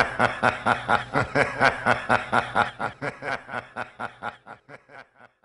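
A long laugh made of rapid, evenly spaced 'ha' pulses, about five a second, growing fainter and dying away near the end.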